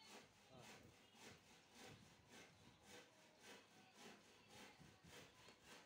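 Faint rhythmic rubbing or scraping, about two strokes a second, like a back-and-forth sawing or scrubbing motion.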